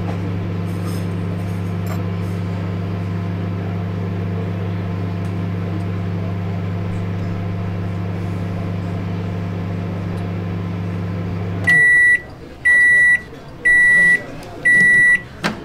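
Countertop microwave oven running with a steady hum, then shutting off as its timer runs out and sounding four high beeps about a second apart to signal the end of the cycle. A sharp click follows near the end.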